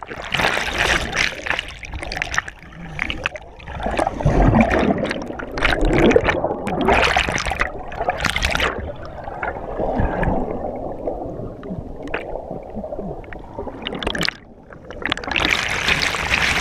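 Churning water and bubbles recorded with the camera submerged in a waterfall's plunge pool: muffled rushing and gurgling with irregular knocks and splashes. It drops briefly about fourteen seconds in, then grows louder as the camera moves into white water near the end.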